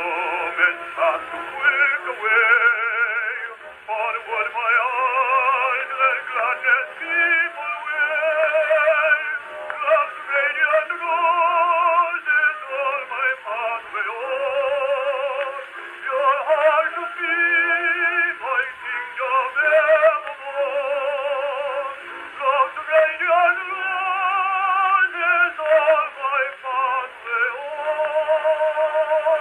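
A 1915 Columbia Double-Face 78 rpm record playing on an HMV 103 wind-up gramophone: a male singer with a wide vibrato and instrumental accompaniment. The tone is thin and narrow, with no deep bass and no bright treble.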